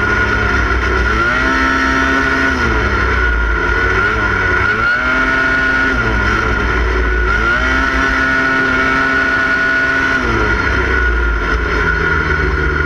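KBS Ramblebee MkVII autocross car's engine heard from onboard, revving up and easing off three times as it drives the course, the revs climbing about a second in, around five seconds in and again near eight seconds in, and dropping back after each. A steady high whine runs under it throughout.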